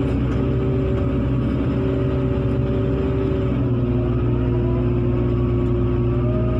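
Heavy diesel engine running steadily under load, its pitch creeping up slightly about four seconds in.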